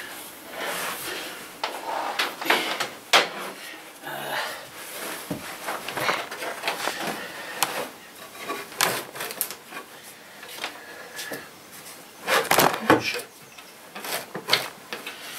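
Irregular knocks, scrapes and rustling of a power cable being pulled and fed down behind a wooden desk, with a louder cluster of knocks near the end.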